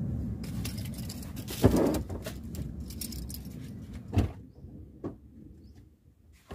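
A few sharp knocks and clunks in a car's interior, the loudest about a second and a half in and another about four seconds in, over a low rumble that dies away.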